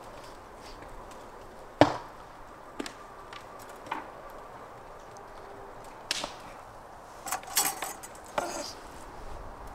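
Steel shashlik skewers clacking as they are loaded with raw meat and laid on a plastic tray: a few separate sharp knocks, the loudest about two seconds in, then a short rattle of metal on metal near the end.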